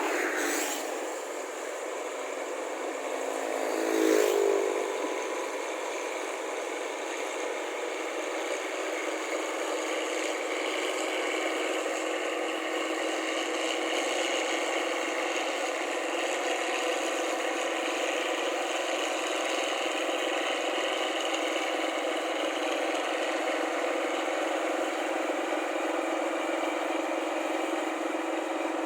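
Diesel engine and threshing machinery of a rice combine harvester running steadily. Two vehicles pass close by right at the start and about four seconds in, the second dropping in pitch as it goes past.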